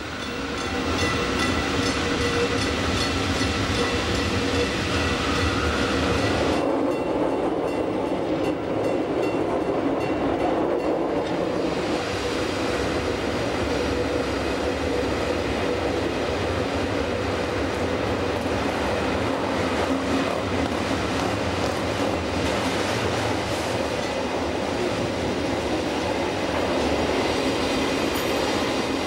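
Rhaetian Railway Bernina line train running on its rails: steady wheel and track noise that builds over the first second and then holds, turning duller for a few seconds from about six seconds in.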